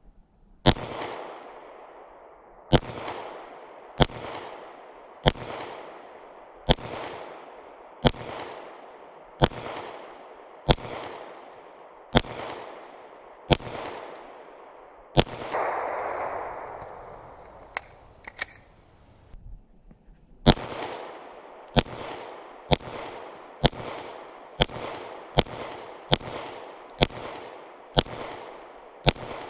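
Smith & Wesson M&P 9mm pistol fired in two strings: eleven shots about one every second and a half, each trailing off in echo. Then a pause of about five seconds for a magazine change, with a couple of small clicks, and ten quicker shots about one a second.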